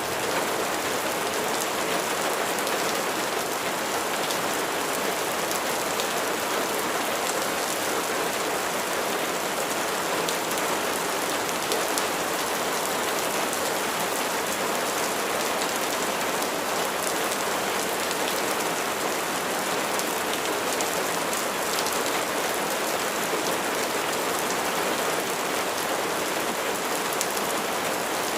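Steady rain falling on a surface: an even hiss with scattered tiny drop ticks, unchanging throughout.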